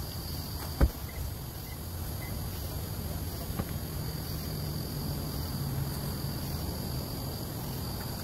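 Outdoor ambience: a steady high-pitched insect drone over a low rumble, with one sharp knock just under a second in.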